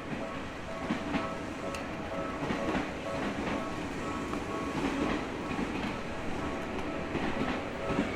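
Train running on the rails, its wheels clacking irregularly over a steady rumble, with a faint steady hum on top.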